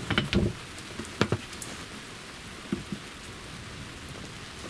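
Rain pouring down on a small boat, a steady hiss with a few sharp knocks and taps, most of them in the first second and a half.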